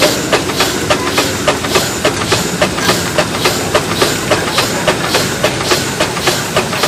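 Steam traction engine running, its exhaust chuffing evenly at about three beats a second.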